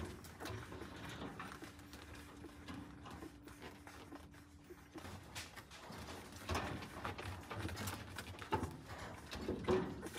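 Akita puppies suckling at their mother's teats: a scatter of small wet smacking clicks and shuffling, busiest in the second half.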